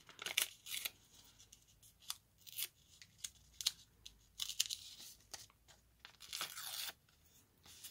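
Thin vellum paper being torn by hand in a series of short, irregular little rips around its edges to give it a rough, ragged edge.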